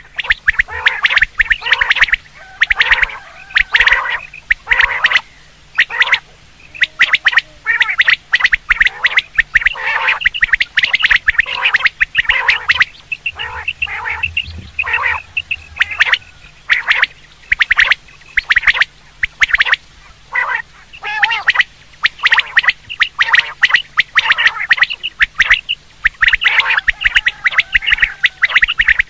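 Quail calling over and over, in quick runs of short sharp notes with brief pauses between the runs.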